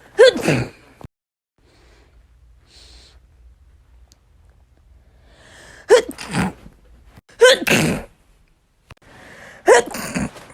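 Four sneezes, each a short loud burst with a falling vocal pitch: one at the start, then two about a second and a half apart in the second half, and a last one near the end.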